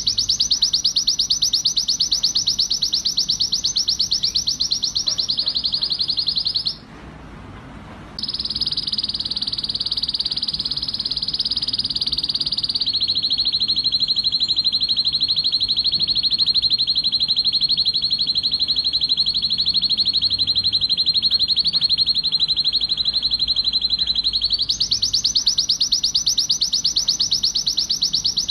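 Male canary singing an excited courtship song of fast rolling trills. It breaks off briefly about seven seconds in, then carries on with a smoother trill and then a long roll of rapid repeated notes. Near the end it switches back to a wider, faster trill.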